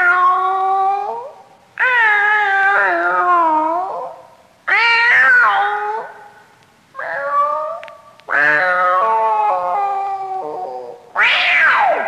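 Cats yowling (caterwauling) in about six long, wavering calls that bend up and down in pitch, one after another with short gaps between, played as a recorded Halloween sound effect.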